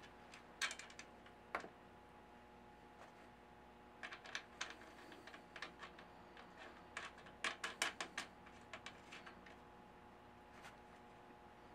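Light, irregular clicks and taps in short clusters as hands work parts at a moped's front wheel and fork, over a faint steady hum.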